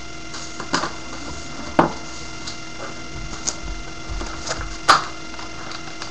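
Pens being handled and tried on a desk: scattered sharp clicks and taps, three of them louder, about one, two and five seconds in, over a steady electrical hum.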